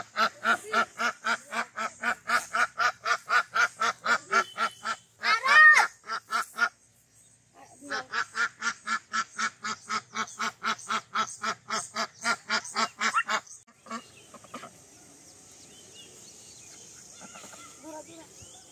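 A duck quacking in fast, evenly spaced runs of about four to five quacks a second. There is one longer, louder call about six seconds in, then a pause of about a second. The quacking stops about 13 seconds in, leaving only a faint background hiss.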